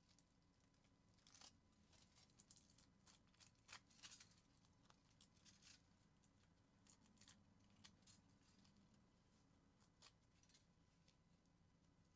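Faint crinkling and tearing of aluminium foil as small pieces are picked out of a masking-tape pattern shell, in scattered small crackles that thin out after about eight seconds.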